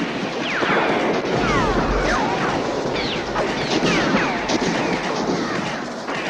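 Film sound effect of a house being shot up: a dense, continuous fusillade of gunfire from many weapons, mixed with smashing and crashing, and many short falling whines.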